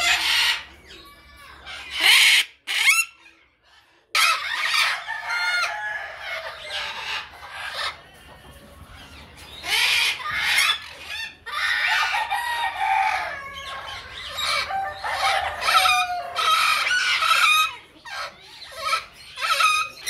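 Chickens clucking and roosters crowing, call after call, with a short lull about three seconds in.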